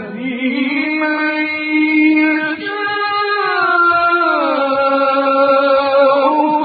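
A male reciter chanting the Quran in a slow, melodic style, holding long notes that glide slowly and step down in pitch about four seconds in.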